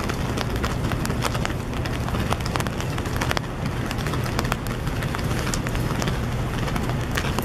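Rain falling, with many close, sharp drop taps over a steady low rumble.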